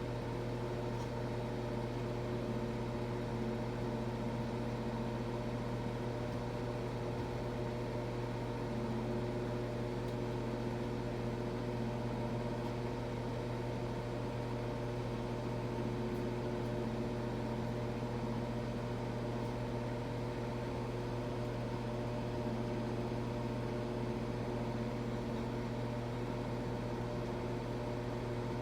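Microwave oven running with a steady, unchanging hum while it heats a plate of food.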